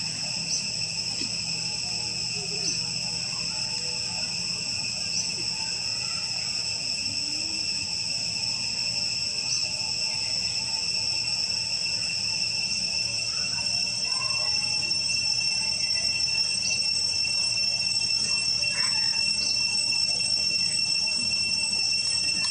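Steady, high-pitched drone of insects in the trees, growing a little louder in the second half.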